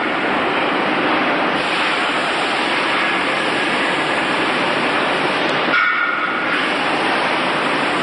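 Steady loud machinery noise, with a brief high squeal of several tones about six seconds in.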